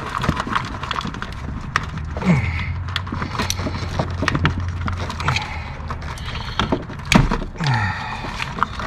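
Plastic wiring-harness connectors being worked off a PCM (engine computer): a string of short clicks, snaps and plastic rattles as the locking flaps are pushed up and the plugs pulled out, with a louder knock just after seven seconds in.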